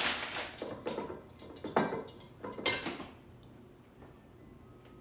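Light kitchen clatter of dishes and utensils handled on a counter: a rattle at the start, then two short knocks about two and three seconds in.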